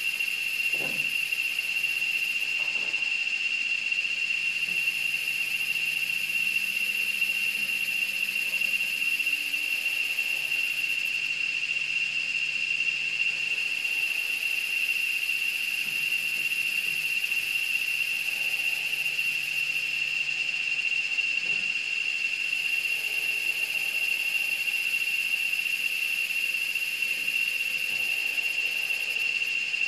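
A steady high-pitched whine with a hiss above it.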